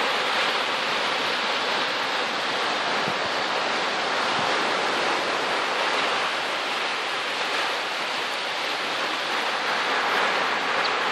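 Steady rushing wash of sea surf on a beach, an even noise with no distinct breaks or impacts.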